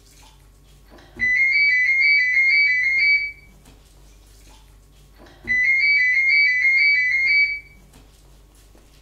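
Electronic warbling ring, two close high tones trilling rapidly back and forth, sounding twice: each ring about two seconds long with a pause of about two seconds between.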